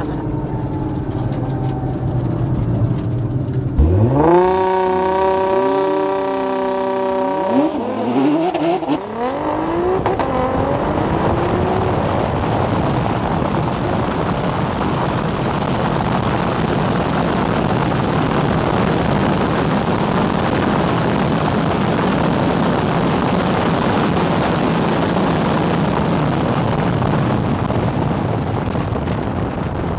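A high-performance car's engine revs up sharply and holds high revs for a few seconds, with pitch changes as it shifts. It then gives way to a long, steady rush of wind and road noise at high speed.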